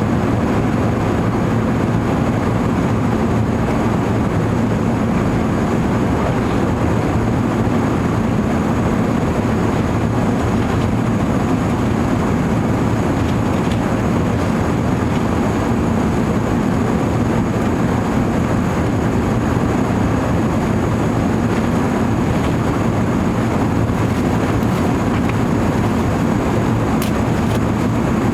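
Steady engine and airflow noise inside the passenger cabin of an Airbus A380 powered by Rolls-Royce Trent 900 turbofans, a constant low rumble with faint hum tones.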